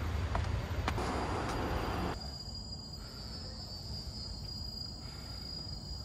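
Steady high-pitched drone of insects. For the first two seconds a low rumble and rustling noise sits under it, then cuts off suddenly.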